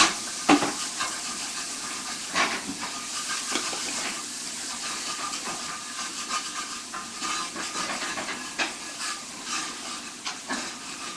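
Food sizzling in a frying pan: a steady hiss with scattered crackles, and a couple of sharp knocks near the start.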